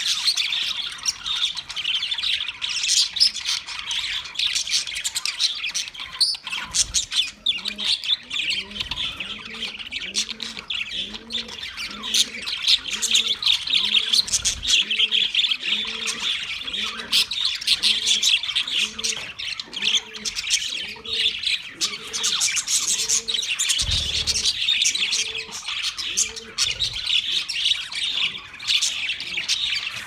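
A flock of budgerigars chirping and warbling, many calls overlapping without a pause. Under the chatter, a fainter low sound repeats about once a second through the middle.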